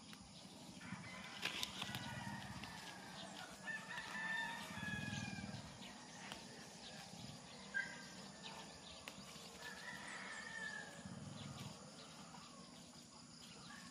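Faint rooster crowing several times, over soft rustling of plants being handled.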